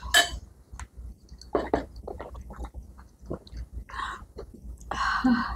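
Quiet eating and drinking sounds: sips of tea from mugs and chewing, with a few small clicks.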